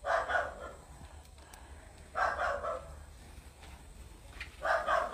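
A man breathing hard and short of breath, a loud, noisy breath about every two and a half seconds: the laboured breathing of a COVID patient with low blood oxygen.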